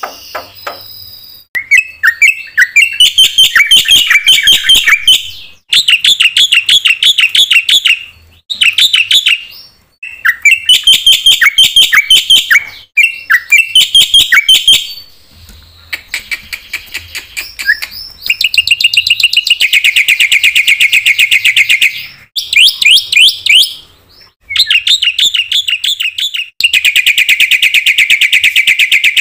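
Black-winged myna (jalak putih) singing a loud song packed with filler phrases, in bouts of fast repeated chattering notes broken by short pauses. In the second half the bouts become long, dense, rapid trills.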